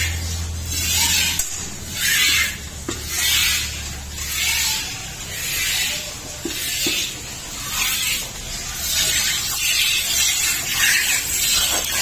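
Milk squirting from a Murrah buffalo's teats into an aluminium bucket during hand milking: a run of hissing squirts, about one and a half a second as the hands alternate, coming closer together near the end.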